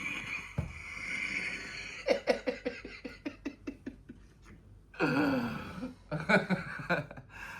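A person laughing hard: a breathy, wheezing stretch, then a quick run of laughing pulses, then more voiced laughter.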